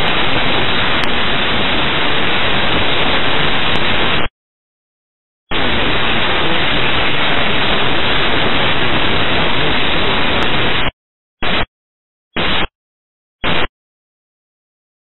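Air traffic control radio static: a loud, even hiss on the open channel with no voice. It cuts off abruptly about four seconds in, comes back for about five seconds, then comes in three short bursts near the end as the channel opens and closes.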